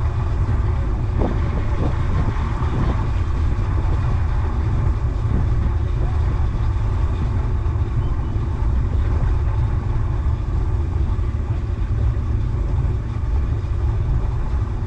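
Twin 250 outboard motors running steadily at low speed, under a loud, even low rumble.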